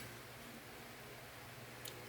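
Quiet room tone: a steady low hum under faint hiss, with one small click near the end.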